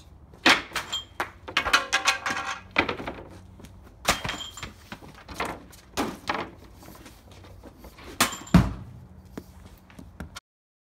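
Irregular knocks and thunks of a hockey stick and puck on a plastic shooting pad, the heaviest and deepest thud a little over eight seconds in. The sound cuts off abruptly shortly before the end.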